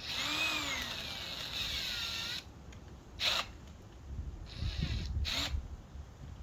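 Metabo HPT DV18DC cordless hammer drill running free for about two and a half seconds, its pitch rising and then falling with the trigger, followed by two short trigger blips a couple of seconds apart with some handling noise between.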